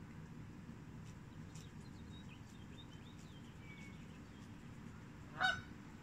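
A Canada goose gives a single short honk about five and a half seconds in, the loudest sound here, over a low steady background rumble. Faint bird chirps sound in the middle, with a few soft tearing clicks of the goose cropping grass.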